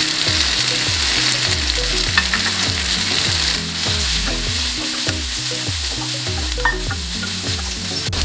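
Onions, dried chillies and spices sizzling in hot coconut oil in a nonstick wok, stirred with a wooden spatula. The spatula gives a few short taps and scrapes against the pan.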